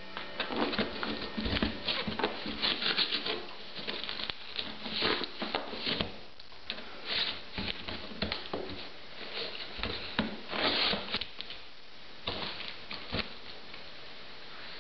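Old English Sheepdog pawing and scratching at a taped cardboard box, its claws scraping the cardboard in irregular bursts with short pauses, dying away near the end.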